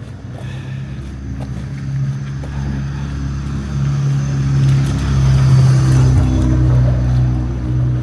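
A motor vehicle's engine with a steady low hum that grows louder, peaks about two-thirds of the way through, then eases off as it passes close by.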